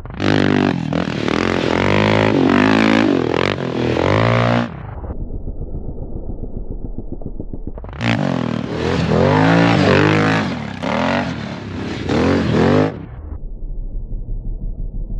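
Yamaha Raptor 700 sport quad's single-cylinder engine, through an aftermarket full exhaust, revving hard with its pitch climbing and dropping for about four and a half seconds. It falls back to a low, evenly pulsing chug off the throttle, then revs hard again for about five seconds before easing off to the chug near the end.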